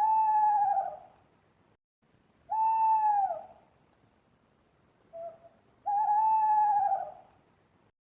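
Owl hooting: three drawn-out hoots about two and a half seconds apart, each dropping slightly in pitch at its end, the last preceded by a short lower note.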